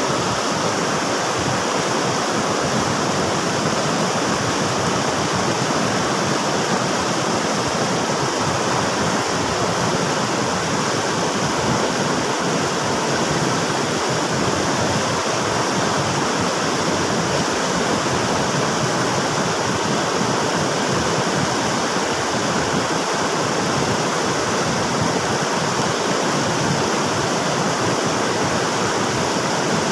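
River water rushing steadily, a constant even rush of flowing water.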